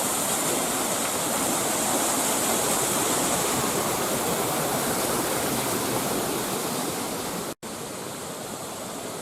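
A large waterfall's water falling and rushing in a steady, dense roar. It cuts out for an instant about seven and a half seconds in and carries on quieter.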